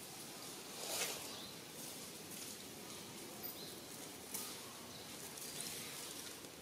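Quiet outdoor ambience: a steady faint hiss with a few short, high bird chirps, and a brief rustle about a second in.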